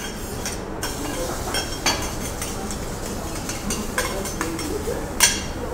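Steak searing on a teppanyaki steel griddle with a steady sizzle, while the metal spatulas clink and scrape against the hot plate a few times. The sharpest clink comes about five seconds in.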